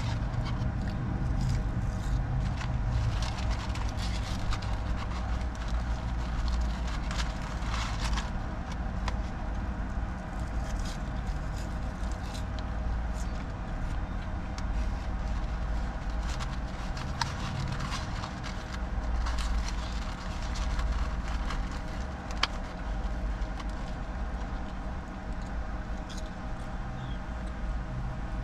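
Steady electric car noise: a low rumble under a constant hum of several fixed tones, with scattered light clicks.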